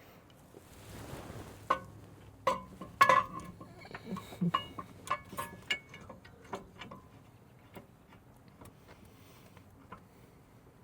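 Metal tools and parts clinking and clicking as they are handled: a flurry of sharp metallic clicks and taps about two seconds in, thinning to occasional faint clicks in the second half.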